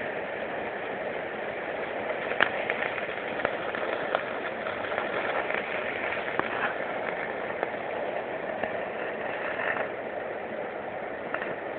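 Electric welding arc burning steadily, a continuous crackling hiss with occasional sharp pops, as weld is built up to fill a hole in the metal.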